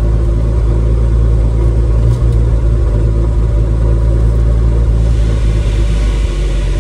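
1954 Dodge dually truck's engine running steadily, heard from inside the cab. A louder rushing noise rises over it about five seconds in and fades just before the end.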